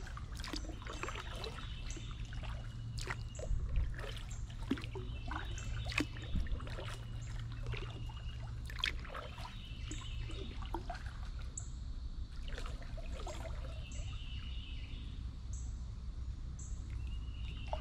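Water trickling and dripping from a kayak paddle as it dips and strokes through the river, with birds singing throughout.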